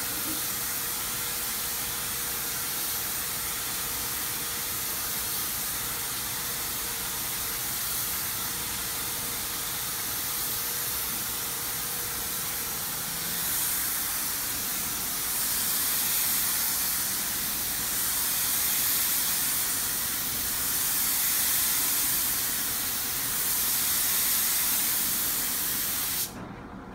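Compressed-air spray gun hissing steadily as it lays on a coat of metallic paint. In the second half the hiss swells louder several times with each spraying pass, then cuts off suddenly near the end when the trigger is released.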